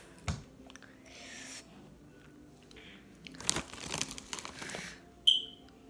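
Crinkling, crunching handling noise, densest in the second half, with a short knock near the start and a brief sharp high squeak near the end.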